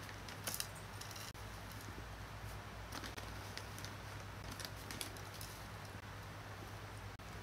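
Plastic bag rustling and faint crackles as dry beaten rice flakes (aval) are taken out by hand and dropped into a bowl, over a low steady hum.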